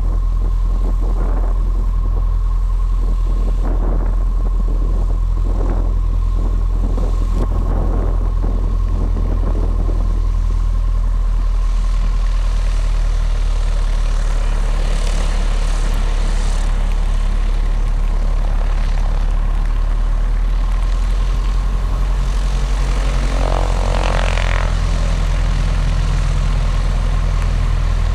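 Piper PA-28-140 Cherokee's four-cylinder Lycoming engine and propeller running steadily, heard from inside the cockpit, with a steady thin whine above it. A brief higher sound rises over the engine near the end.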